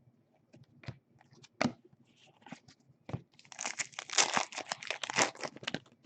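Trading card pack wrapper being torn open and crinkled: a dense crackle lasting about two seconds in the second half, after a few scattered taps and clicks of card handling.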